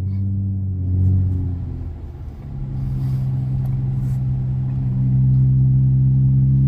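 Dodge Challenger's engine and MagnaFlow Magnapack exhaust under way. The note eases off about two seconds in, then settles into a steady low drone that grows a little louder near the end.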